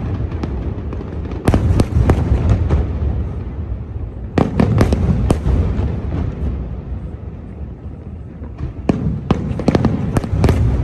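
Aerial fireworks bursting in quick volleys of sharp bangs: one volley about a second and a half in, another near the middle, and a third near the end, with a low rumble carrying on between them.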